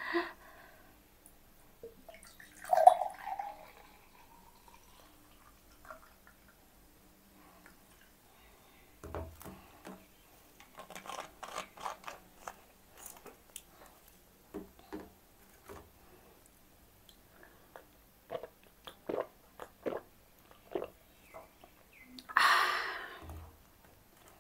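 Orange Fanta poured from a plastic bottle into a glass mug and fizzing, amid scattered clicks and taps of the bottle, cap and glass. A sharp sound comes about three seconds in, and a short breathy burst near the end.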